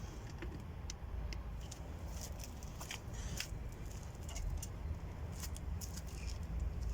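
Scattered light clicks and ticks from hand tools and plastic door trim being handled while screws are taken out of a car door panel, over a steady low rumble.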